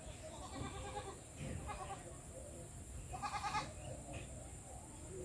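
A goat bleating several times, with short wavering calls; the loudest and longest comes about three seconds in.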